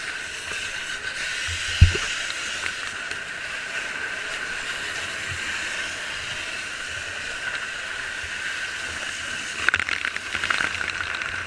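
A steady hiss, with one dull thump about two seconds in and a run of crackles near the end.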